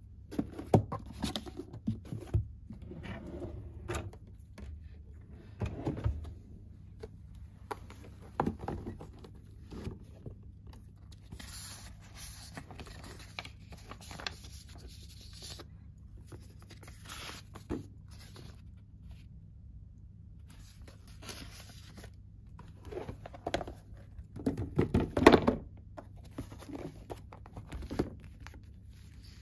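Handling noise of books, paper sheets and a leather folder on a desk: scattered knocks and thumps, paper rustling near the middle, and a burst of louder knocks and rubbing near the end, over a low steady hum.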